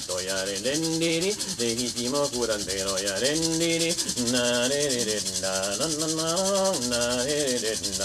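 An icaro, an Amazonian ayahuasca healing song, sung in gliding melodic phrases over the fast, steady dry rustle of a shaken chakapa leaf-bundle rattle.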